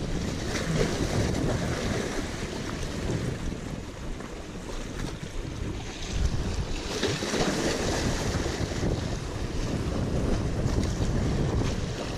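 Wind buffeting the microphone over small waves washing and splashing against the rocks of a stone jetty, with a louder surge about six seconds in.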